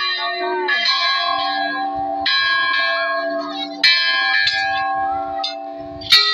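Temple bells being struck again and again, a new strike every second or so. Each one rings on, so several bell tones overlap.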